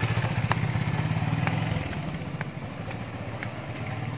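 Motorcycle engine running close by, its rapid firing pulses loud at first and fading away about two seconds in.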